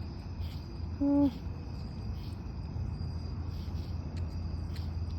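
Crickets chirping steadily at night, a high continuous trill with faint repeated pulses. About a second in there is a brief voiced hum, and a low steady rumble runs underneath.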